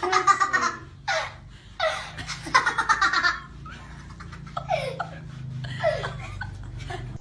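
People laughing heartily in quick repeated bursts, the laughs growing weaker after about three and a half seconds.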